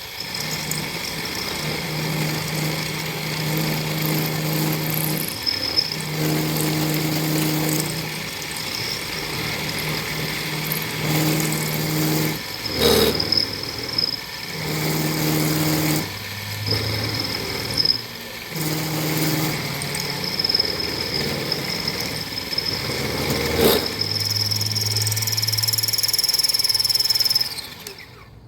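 Machine-tool spindle running while cutting a hole through a steel scooter brake bracket. The cutting hum comes and goes in several stretches, with a couple of sharp knocks between, and the machine cuts off shortly before the end.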